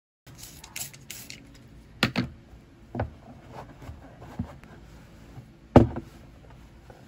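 A plastic desk pen organizer being wiped with a cloth and handled on a wooden desktop: brief rubbing swishes early on, then a few separate knocks of the plastic box against the desk, the loudest a little before six seconds in as it is tipped over.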